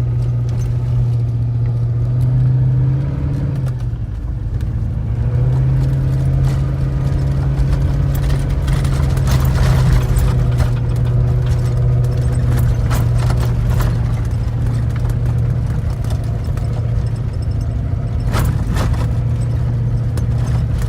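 Land Rover Discovery 2 engine running steadily at low revs as the vehicle drives over rough ground. The engine note dips briefly about four seconds in and then picks up again. From about eight seconds on there are scattered clunks and rattles, the loudest a pair of knocks near the end.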